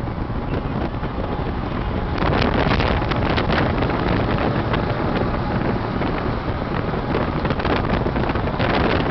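Wind rushing over the microphone and road noise from a vehicle moving at speed, growing louder about two seconds in as a car-carrier truck comes close alongside.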